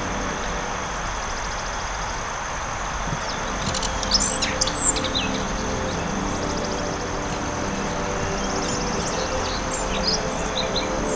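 Forest ambience: small birds chirping and trilling over a steady rushing background, with the loudest burst of calls about four seconds in and a short trill and scattered chirps later.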